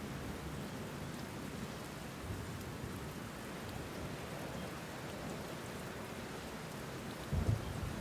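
Steady rain falling, with a short low rumble of thunder about seven seconds in.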